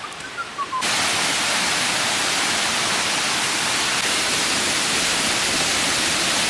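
Steady rush of a large waterfall, an even hiss of falling water that cuts in suddenly under a second in. Before it, a few faint high chirps.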